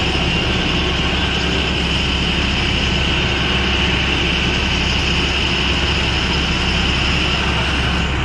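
Fire tender's pump engine running steadily under the hiss of water jetting from a fire hose nozzle.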